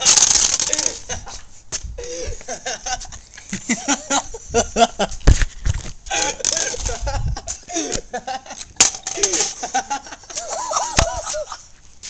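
Indistinct voices and laughter, with many irregular clicks, clinks and clatter.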